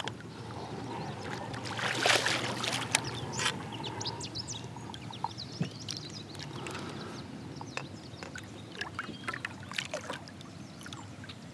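Hooked northern pike thrashing at the surface right beside a kayak, water splashing and sloshing, with the biggest splash about two seconds in. Scattered small knocks and clicks run through it.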